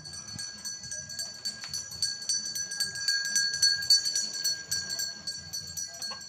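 Continuous jingling with steady high ringing tones, like small bells or a tambourine, growing louder in the middle, over irregular low rumbling.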